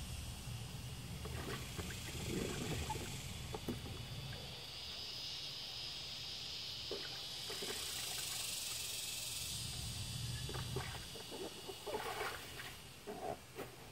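Rustling and soft clicks of harvested long beans and okra being handled and sorted, over a steady high hiss. A few sharper knocks near the end as a plastic tub is tipped up on its edge.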